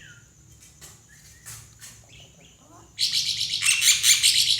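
A starling-family bird gives a few faint chirps and clicks. About three seconds in it breaks into a loud burst of rapid, high-pitched chattering that lasts about a second and a half.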